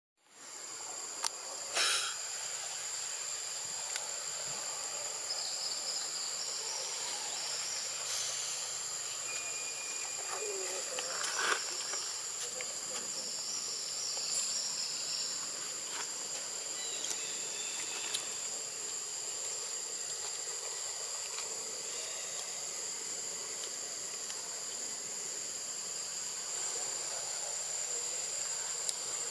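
Steady high-pitched drone of insects, with a few short sharp clicks, one about two seconds in and another about halfway through.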